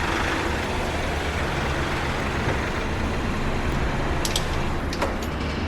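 Car running, heard from inside the cabin: a steady mix of engine and road noise, with a few light clicks about four seconds in.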